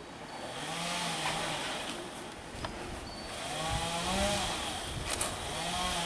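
Chainsaw engine running at a low idle, its pitch wavering, with a couple of sharp knocks.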